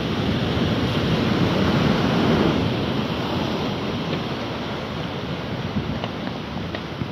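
Rushing noise of wind and waves on a stormy, flooding seafront, with wind buffeting the microphone. It swells about a second or two in and then slowly eases.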